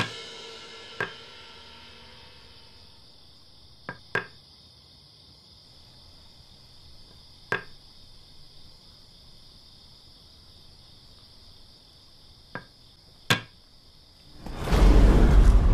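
Wooden xiangqi pieces clicking down onto a wooden board: about six sharp single clicks several seconds apart, two of them close together, over the steady chirring of crickets. Music fades out at the start, and a sudden loud swell of music comes in near the end.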